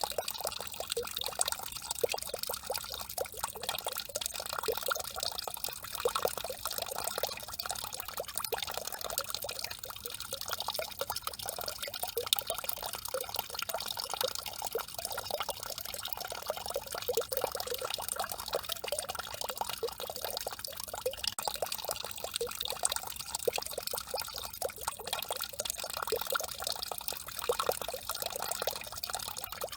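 A peeing-statue-style fountain's single stream of water pouring steadily into the water below, with constant splashing.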